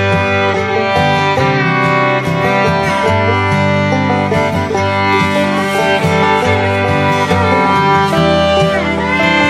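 Instrumental background music with sustained pitched notes, some of them sliding between tones.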